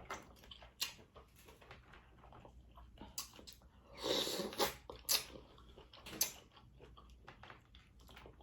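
Close-miked mukbang eating of a black mussel: chewing and mouth smacks with scattered sharp clicks, and a longer noisy burst about four seconds in.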